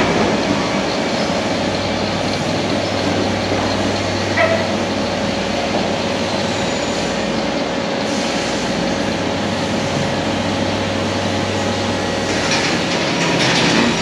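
Refrigerated compressed-air dryer running: steady machine noise from its refrigeration unit and condenser fan. A low hum drops away about two seconds before the end.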